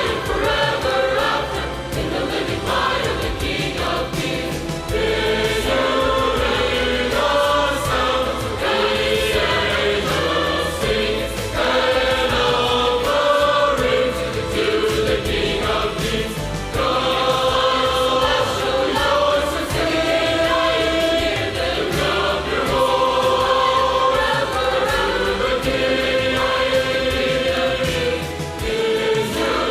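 A church choir singing a worship song in sustained, full chords over instrumental accompaniment.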